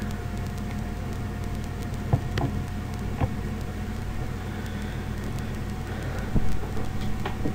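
Steady background hum and hiss with a faint steady high tone, broken by a few faint clicks about two to three seconds in.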